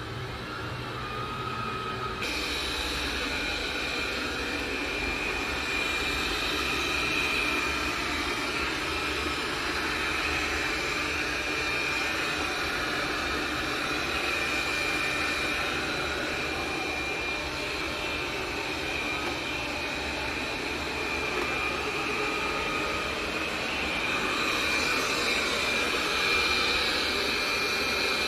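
iNic i9 robot vacuum running: a steady motor whir with a thin high whine, and a brighter hiss that sets in about two seconds in.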